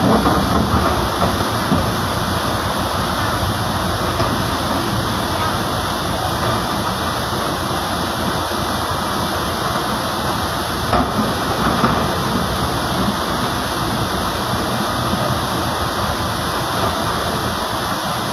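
Steady rush of river water pouring over a log crossing, with the diesel engine of a Komatsu excavator running as it wades through the river.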